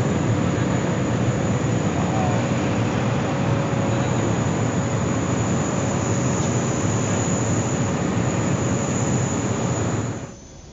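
Boeing 777X's GE9X turbofan engines running with a loud, steady jet roar as the airliner moves along the runway. The roar cuts off suddenly just before the end.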